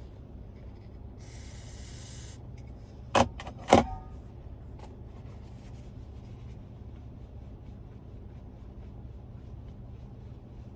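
A short blast of CRC QD electronic contact cleaner hissing for about a second, sprayed into the radio's volume control to clean the dirty control that makes the volume jump around. Two sharp clicks follow about half a second apart, over a steady low hum.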